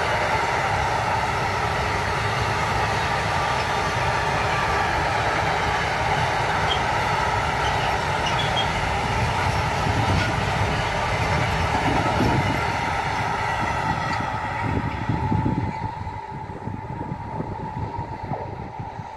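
Long container freight train rolling past: a steady rumble of wagon wheels on the rails with a constant high tone running through it. The sound drops off about three-quarters of the way through as the end of the train passes and it recedes.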